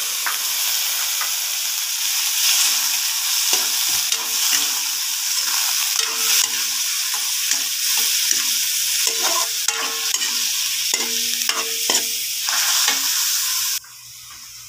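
Shucked oysters sizzling in hot oil in a metal pan, with a metal spoon scraping and clinking against the pan as they are stirred. The sizzle drops away suddenly near the end.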